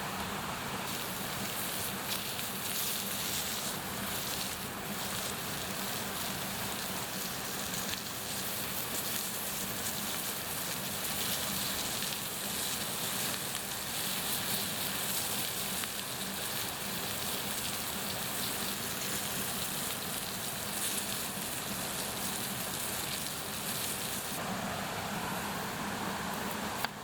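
Raw sausages sizzling over a wood campfire: a steady hiss with scattered small crackles and pops from the burning wood and spitting fat.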